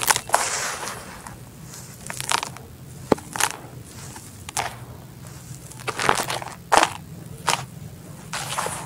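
Dry red dirt crumbled and crushed by hand in a bucket: gritty crunches of small chunks breaking, in uneven strokes about once a second. In the first second or so there is a longer hiss of loose dirt pouring back down.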